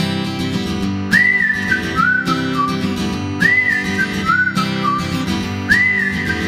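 Background music: strummed acoustic guitar under a whistled melody. The same short whistled phrase, a rising note followed by falling notes, comes three times.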